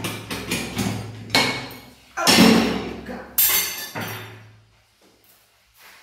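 Metal pressure cooker being opened: a run of small clicks and rattles from the lid and valve, then two louder metal clanks as the lid comes free and is set down.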